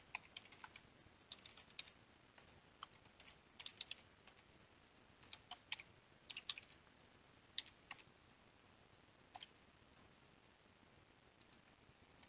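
Faint computer keyboard typing: irregular keystrokes in short runs, thinning out to a few scattered taps in the last few seconds.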